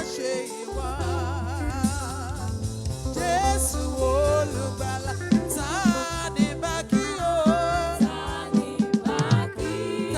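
Gospel worship music: a singer holding notes with wide vibrato over bass and a steady drum beat, the bass coming in about a second in.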